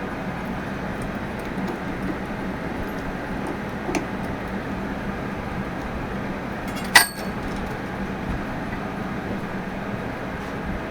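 Steady low hum of workshop background noise, broken by a faint tap about four seconds in and one sharp metallic click about seven seconds in.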